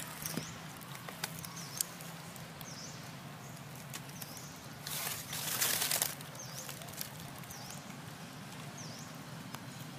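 A rustle of dry fallen leaves about five seconds in, with a few small clicks and crackles early on, over a short high chirp that repeats about once a second.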